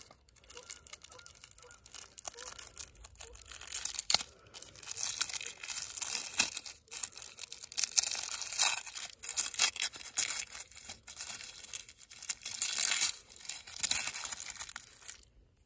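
Red paper wrapper of a brick of firecrackers being torn and crinkled open by hand: irregular rustling and ripping that stops abruptly just before the end.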